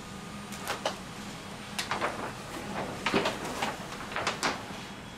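Stiff printed sign sheet and laminating film crackling and snapping in a run of sharp, irregular bursts as the sheet is fed through a roll laminator, over a steady low hum.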